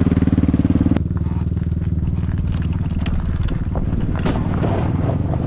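Yamaha Raptor 660 quad's engine idling for about a second, then a two-stroke KTM dirtbike rolling downhill on gravel in a run-start attempt: a rough rumble of tyres and chassis with scattered clicks and knocks, the engine not running.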